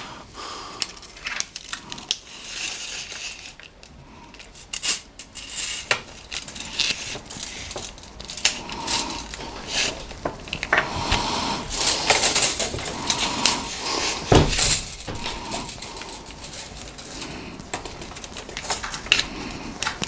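Steel tape measure being pulled out and handled along a fabric-sleeved USB cable: scattered metallic clicks, rattles and rustling, with a low thump about two-thirds of the way through.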